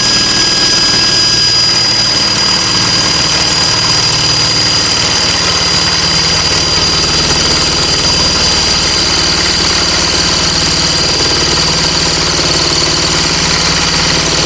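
Electric motor of a homemade lathe running steadily at speed with a high whine, spinning a chrome motorcycle axle while it is polished.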